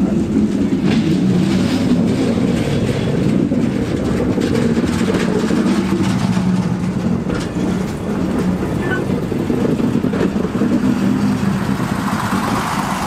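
Railway locomotive running, a loud steady low drone.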